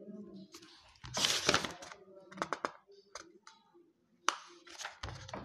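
Book pages being turned and handled: several short paper rustles with small clicks between them.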